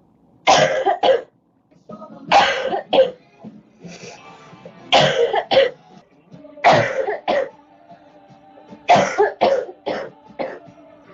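A girl coughing in repeated fits: five or six bouts of two or three harsh coughs each, about two seconds apart.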